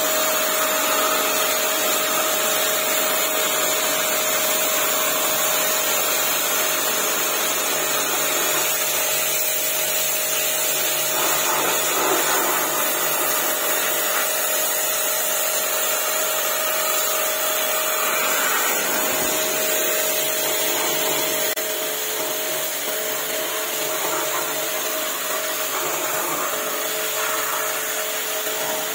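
Kortex KTX-R5D electric pressure washer running, its 1.8 kW motor and pump giving a steady whine under the hiss of the high-pressure water jet spraying mud off a car's lower door and sill.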